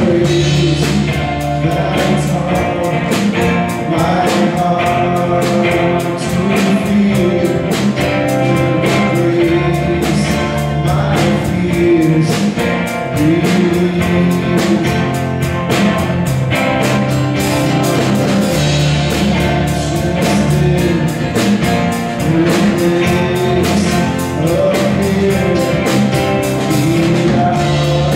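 Live band playing a worship song: sung vocals over a strummed 12-string acoustic guitar, keyboard and drums, with a steady beat.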